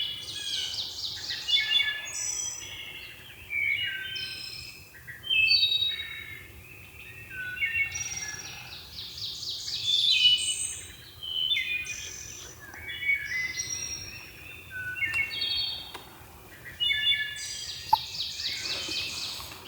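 Several songbirds singing and calling over one another, with short whistled phrases and fast trills overlapping.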